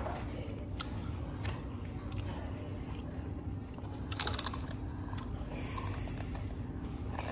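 A child biting and chewing crisp chips: a few sharp crunches, the loudest a quick cluster about four seconds in, over a steady low room hum.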